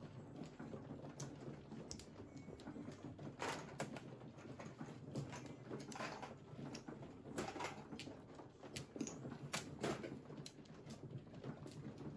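Mahjong tiles clacking against each other and the table as players arrange, draw and discard them: quick, irregular clicks and knocks over a low steady hum.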